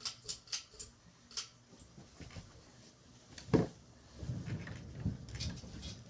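A few light clicks in the first second, then a single sharp thump about three and a half seconds in, followed by a low scraping rumble for about a second and a half as a chair is moved into place.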